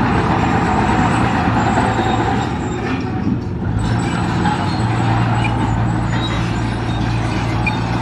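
Large diesel engine of heavy construction machinery running steadily under load, a low engine hum with mechanical clatter over it, easing slightly about three seconds in.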